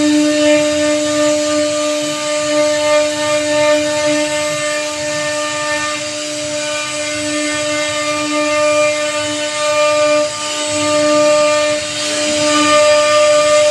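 J-1325 CNC router's spindle running with a steady high whine while its bit carves a teak door panel, with the rasp of the cutting over it and the level rising and dipping slightly as the bit moves through the wood.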